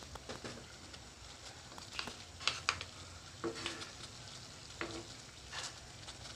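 Water bubbling steadily at a rolling boil in a stainless steel pot, with a wooden spoon scraping and knocking against a stone mortar several times as pounded spice paste is scooped out.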